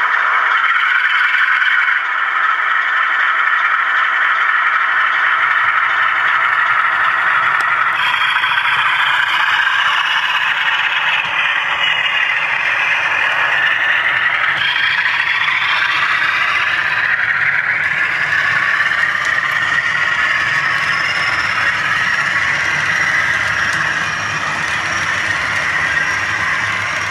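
Model diesel locomotive with a DCC sound decoder pulling away, its engine sound climbing in pitch through the middle, mixed with the scraping rattle of the model's wheels and coaches over the track.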